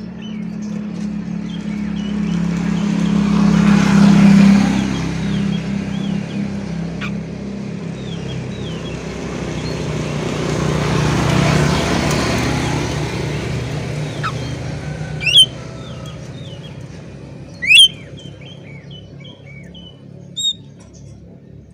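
Oriental magpie-robin (kacer) chirping over the sound of two motor vehicles going past, one building to a peak about four seconds in and the next around eleven seconds in. In the second half the bird gives two loud, sharp rising notes a couple of seconds apart, followed by quicker short chirps.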